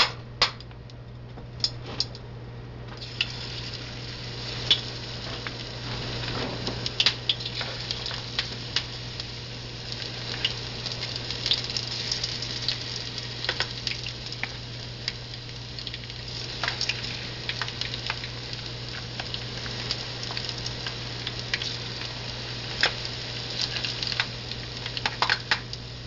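Spoonfuls of corn fritter batter dropped into shallow hot oil in a frying pan, the oil sizzling steadily from about three seconds in. A spoon clinks against the bowl and pan throughout.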